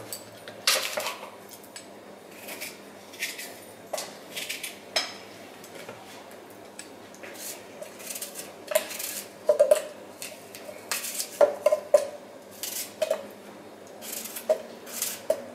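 Kitchen knife cutting an apple on a wooden cutting board: irregular knocks and clicks of the blade against the board, with apple pieces dropped into a blender jug.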